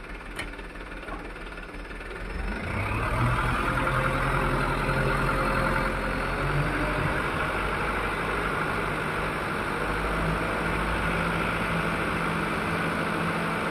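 Mitsubishi Canter dump truck's diesel engine running. About two and a half seconds in it gets louder and runs steadily on as the hydraulic hoist tips the dump body up.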